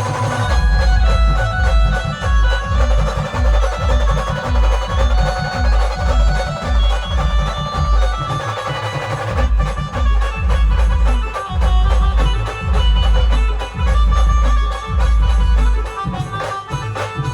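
Band playing an instrumental passage of a folk wedding song: a reedy lead melody over a heavy, steady bass-drum beat, with no singing.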